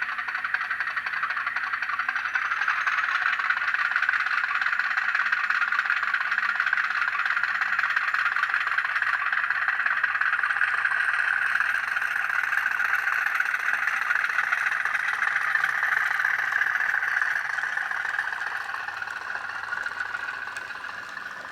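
N gauge model of the LMS 10001 diesel locomotive running on the layout track: a steady rattling running noise, fading away over the last few seconds.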